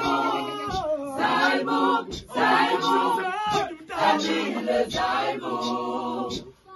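Mixed gospel choir of men and women singing unaccompanied in harmony, in phrases broken by short pauses.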